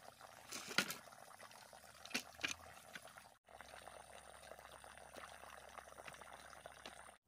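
Hollow green bamboo poles knocking against each other a few times as they are shifted into place side by side, over a faint steady hiss. After a cut, a steadier hiss with a thin, high, steady tone runs until it stops abruptly near the end.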